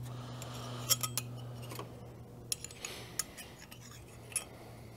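Light metallic clicks and clinks of a small steel bracket and its thumb screws being fitted against the metal front of a pizza oven, about six sharp clicks spread over a few seconds, over a steady low hum.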